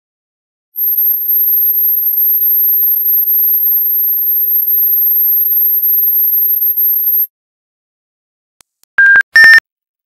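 Dog whistle giving one steady, very high-pitched tone for about six and a half seconds, then cutting off sharply. About a second and a half later come two short, loud, lower whistle toots, the second a little higher in pitch.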